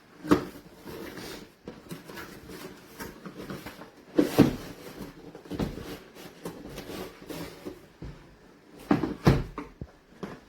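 Knocks and clatter of hard objects being handled and set down, with a few sharper thumps about four seconds in and again near nine seconds.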